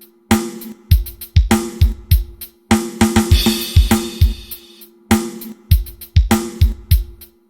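Drum kit played through a PA sound system for a sound test: a steady groove of kick drum and snare hits with hi-hat, and a cymbal crash ringing about three seconds in.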